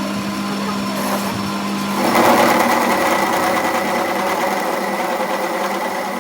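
A small electric power tool running steadily, its motor humming. It grows louder and harsher from about two seconds in, as if it has bitten into metal.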